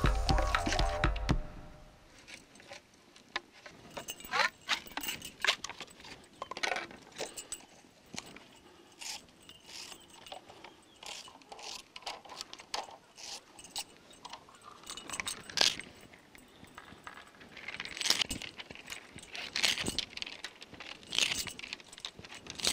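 Music cuts off about a second in. Then come irregular sharp clicks, scrapes and rustles as long bamboo strips are split and worked by hand, with a louder cluster of clicks near the end.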